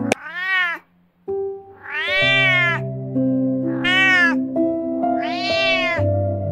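Domestic cat meowing four times, each meow rising and then falling in pitch, over soft background music.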